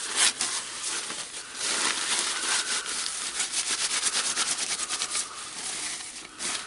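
Small metal and plastic parts of a rotary hammer's tool holder being handled and worked apart by hand: rubbing and scraping, with a fast run of clicks in the middle.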